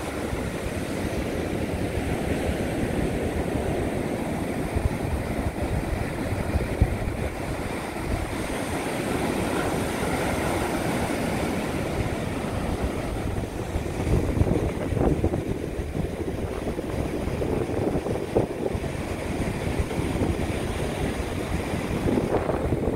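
Ocean surf washing on a beach, with wind rumbling on the microphone; a steady noise that swells and eases.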